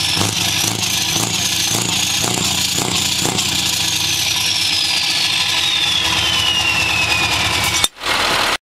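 Scania V8 diesel truck engine running, heard at its straight exhaust pipe, with a high whine that climbs a little over the first three seconds and then falls slowly in pitch. The sound drops out for a moment near the end, then returns briefly.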